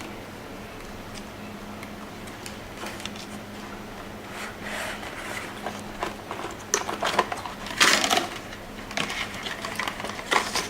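Handling noises from unpacking a desktop processor and its heat sink: scattered rustles, clicks and knocks of packaging and parts. They are sparse at first and become busier and louder in the second half, over a faint steady hum.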